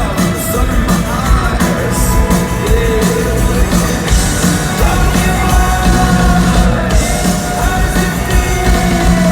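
Live rock band playing loud with a singer's voice over heavy drums and bass, as heard in the concert crowd.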